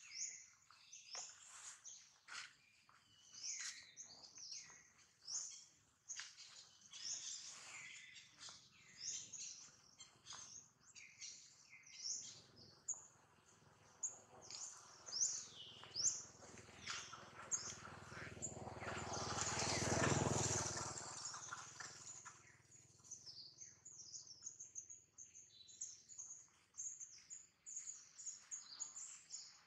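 Small songbirds chirping and twittering throughout in quick, high calls. About two-thirds of the way through, a rushing noise swells up over a few seconds and fades away; it is the loudest sound here.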